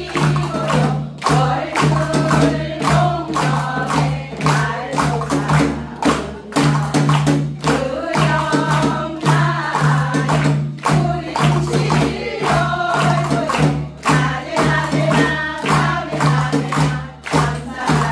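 A group of women singing a Jeju haenyeo folk song together, over a steady beat struck on clay water jars (heobeok) with the hands.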